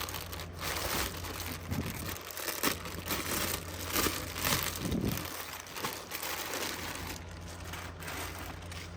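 Packaging crinkling and rustling irregularly as a plush toy is handled and taken out of it.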